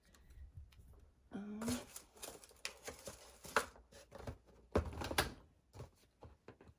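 Cardboard doll box and packaging being handled: rustling with scattered clicks and knocks, loudest around five seconds in.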